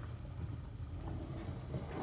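Wood-fired rocket stove burning, its fire drawing with a steady low rumble and a few faint crackles.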